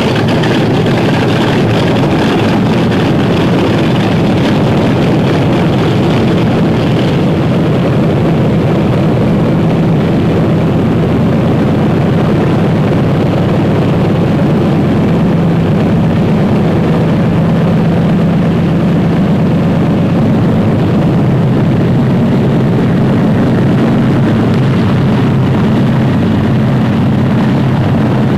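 Propeller aircraft's piston engines running at a steady, unchanging drone.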